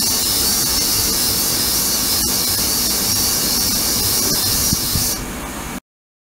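Ultrasonic cleaning tank running, a steady high hiss from the agitated water with a few faint ticks. The hiss stops about five seconds in and the sound cuts off shortly after.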